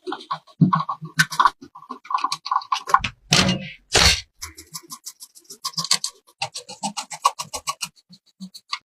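A busy run of sharp clicks and short beeps, with two whooshes about three and four seconds in and a fast, even patter of clicks near the end.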